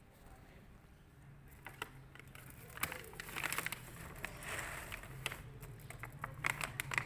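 A cat crunching dry kibble: quick, irregular crackly crunches that begin about two seconds in and come thick and fast in clusters.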